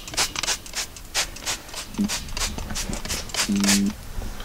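Hand pump spray bottle squirted rapidly, several short hissing sprays a second with a brief pause about two seconds in, wetting a propane tank's regulator and valve fitting with soapy water to check for gas leaks. A short low tone sounds about three and a half seconds in.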